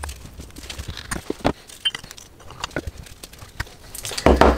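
Light clicks and knocks of metal carburettor parts being handled as a float bowl is fitted onto a Honda CB750 four-carburettor bank, with a louder thump near the end.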